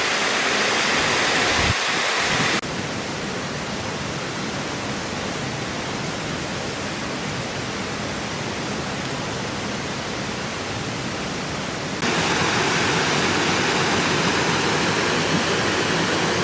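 Steady rushing of a waterfall. It turns abruptly quieter and duller about two and a half seconds in, then abruptly louder and brighter again about twelve seconds in.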